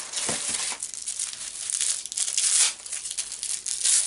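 Gift wrapping paper being torn open and crumpled by hand: a run of irregular rustling rips, loudest a little past halfway.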